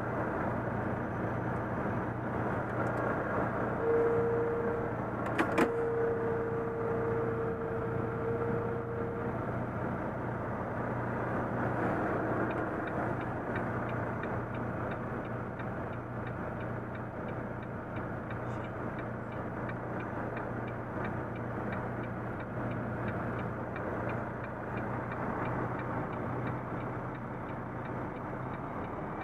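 Volvo FM truck's diesel engine running at low speed, heard from inside the cab as a steady hum with road noise. About four seconds in, a steady mid-pitched tone sounds for about five seconds, broken briefly, with one sharp click near its start.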